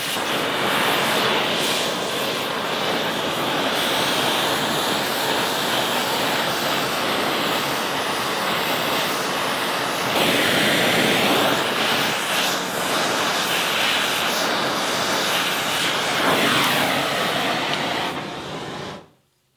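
Acetylene torch flame burning steadily with a rushing noise as it heats a hardened steel shaft toward cherry red to anneal it. The sound swells a little partway through and cuts off abruptly near the end.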